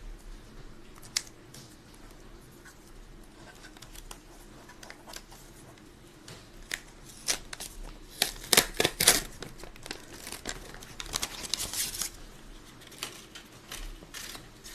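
Handling noises: scattered sharp clicks with rustling, crinkling bursts, busiest in the second half.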